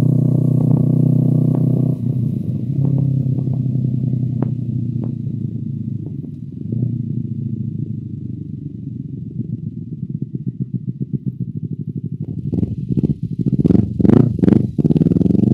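Honda CBR250RR's parallel-twin engine through an Akrapovic exhaust, heard from the rider's seat as the bike slows on a closed throttle. The note fades into a low, uneven burble with separate firing pulses and a few sharp crackles, then a burst of loud pops and blips near the end.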